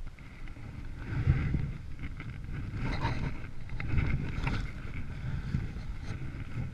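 A hiker's footsteps on snow-covered rock with jacket rustle, over a low rumble of wind and handling noise on the body-mounted camera's microphone; several louder thuds and scuffs come in the middle.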